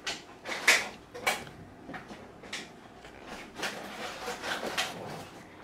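Pages of a coloring book being turned by hand: several short papery swishes about a second apart.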